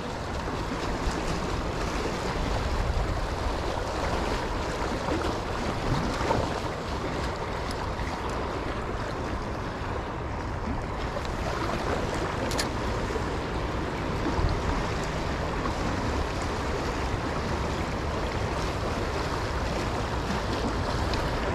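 Shallow river water rushing steadily over rocks in a riffle, an even wash of flowing water.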